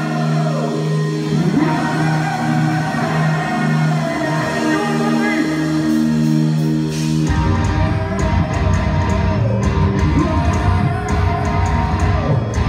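Thrash metal band playing live in a concert hall: held guitar chords ring out with no bass or drums, then about seven seconds in the full band crashes in with pounding drums and heavy bass under distorted guitars.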